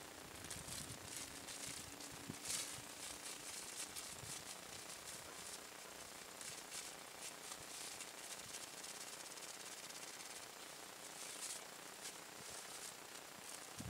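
Prawn sambal sizzling faintly as it cooks: a steady high hiss with small crackles and spits.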